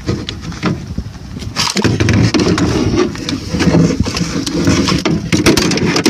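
An engine running steadily, louder from about two seconds in, with a few sharp metallic clicks of spanners on a threaded hose fitting early on.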